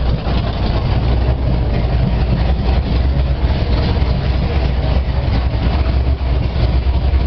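Gasoline engine with points ignition running steadily and loudly, a deep low rumble.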